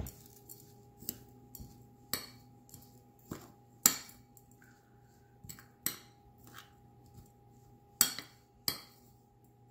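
Metal spoon clinking and scraping against a ceramic bowl while stirring a mixture of grated coconut and flaked canned fish, in irregular sharp clinks, the loudest about four and eight seconds in.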